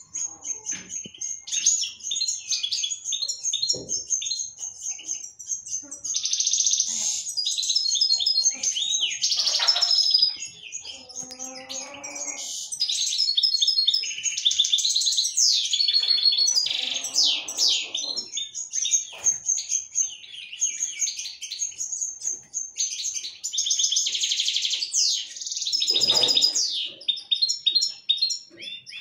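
Several caged finches, European goldfinches among them, singing at once: a continuous run of rapid, high twittering, trills and chirps, several birds overlapping.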